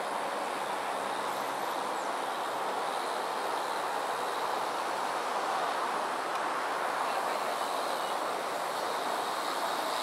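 Steady, even noise of a vehicle in motion, with no distinct events.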